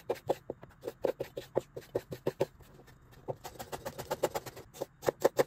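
Chef's knife chopping red bell pepper into small dice on a plastic cutting board: quick, even knife strikes about four or five a second, with a short pause about midway.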